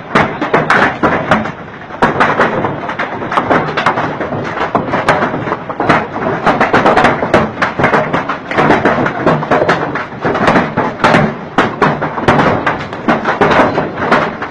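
Hailstones about the size of ping-pong balls pelting down: a dense, irregular clatter of sharp cracks and thuds over a steady hiss of falling hail.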